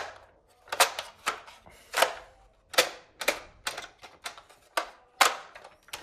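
Sharp hard-plastic clicks and clacks from a toy electric soft-dart blaster being handled, about a dozen of them at roughly two a second, irregularly spaced.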